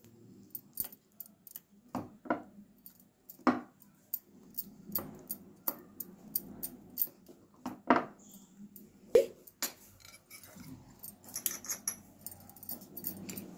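Spoon stirring thick rice-and-lentil appam batter in a bowl, with irregular soft taps and clicks against the bowl and a few louder knocks.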